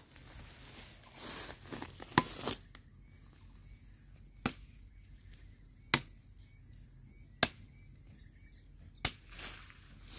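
A blade chopping into a woody cassava stem: about five sharp knocks, each roughly a second and a half apart.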